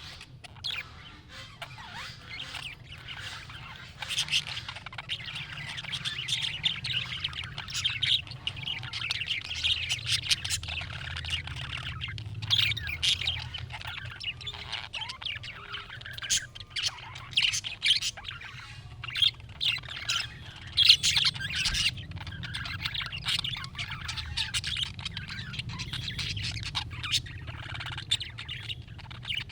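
Budgerigar chatter: a fast, continuous run of warbling chirps, clicks and squawks, busier from about four seconds in.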